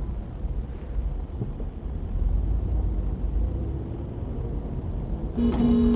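Steady low rumble of a car's engine and road noise picked up by a dashcam inside the car. Near the end a car horn gives one long, steady honk.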